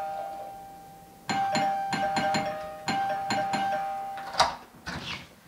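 House doorbell chime ringing. One ring fades out at the start, then the bell is pressed over and over, about nine rings in quick succession. A single sharp click follows near the end.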